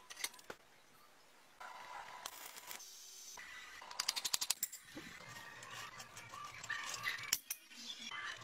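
Electric arc welding on a steel piece clamped in a vise: a rapid run of sharp crackles about four seconds in, then an uneven crackling sputter while the arc burns.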